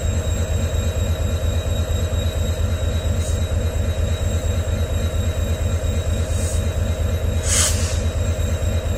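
EMD WDG4 locomotive's 16-cylinder 710G3B two-stroke diesel idling with a steady, fast-pulsing low hum. Short hisses come about three and six seconds in, and a louder one at about seven and a half seconds.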